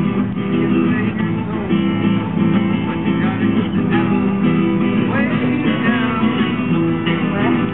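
Acoustic guitars strumming a tune in a loud, steady jam, with a melody line weaving above the chords.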